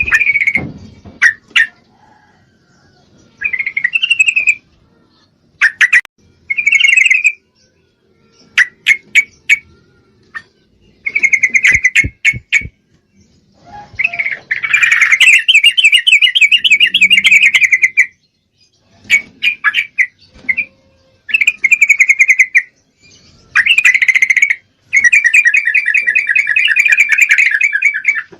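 Yellow-vented bulbul calling: loud bursts of chattering notes and two longer rapid trills, repeated with short pauses. The bird is presented as a female in breeding condition calling to a male.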